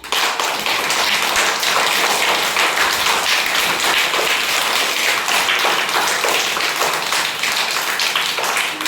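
A group doing a rain clap: many hands tapping and clapping fast and out of step, imitating the patter of rain.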